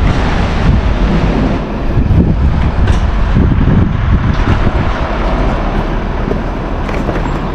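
Wind buffeting the microphone outdoors: a loud, steady low rumble with a few faint knocks.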